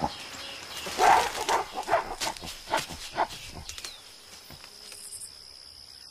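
Mountain gorilla giving a run of short calls, about two a second, starting about a second in and loudest at the first, over a steady high-pitched hum.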